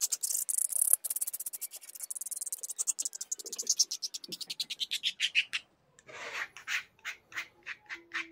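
Metal palette knife scraping and mixing thick paint on a palette: a run of very rapid scraping strokes, then after a short pause slower separate strokes about three a second.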